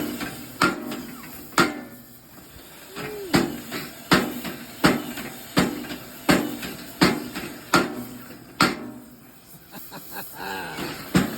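Homemade cam-driven Da Vinci-style dead-blow power hammer striking hot metal, one sharp blow about every three quarters of a second. The blows break off briefly twice, the second time near the end with only small clicks.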